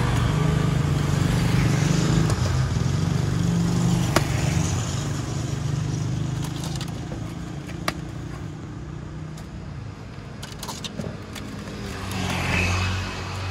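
Road traffic passing close by: motor vehicle engines running, louder through the first half, easing off after about six seconds, then another vehicle coming up near the end. A couple of sharp clicks sound over it.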